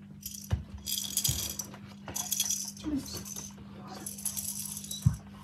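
Rattling and rustling from handling and shaking a small magic-trick prop, in three bursts, with a few sharp knocks.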